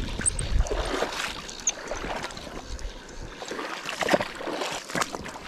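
Water splashing and sloshing in a shallow river as a hooked brown trout is played close in, with scattered clicks and knocks from handling the rod and fly reel.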